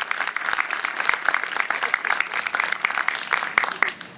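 Audience applauding after a children's song: many hands clapping, which stops abruptly near the end.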